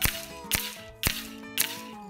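Background music: sustained tones under a sharp percussive hit about twice a second.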